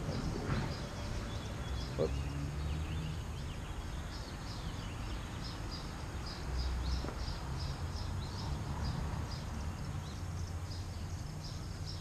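A small bird chirping in a rapid series of short, high notes, thickest in the second half, over a steady low rumble of outdoor background noise.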